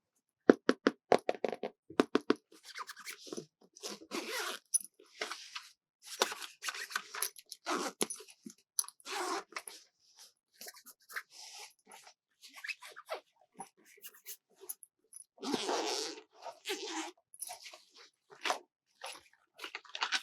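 Hands handling and crinkling plastic toy packaging in irregular crackly bursts, with a quick run of sharp clicks at the start.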